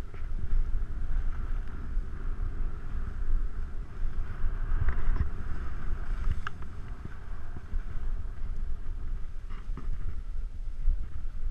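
Wind rushing over the microphone with a steady low rumble, and the hiss and scrape of a rider sliding and turning through snow, with a few brief harder scrapes.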